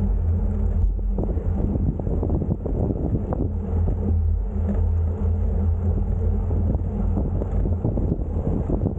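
Steady low rumble of wind buffeting the microphone during a bicycle ride.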